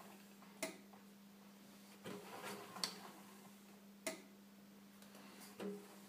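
Relay on a Beko washing machine's control board clicking sharply a few times as the drum is turned by hand, a strange fault. Softer rubbing and knocking from the moving drum come in between, over a steady low hum.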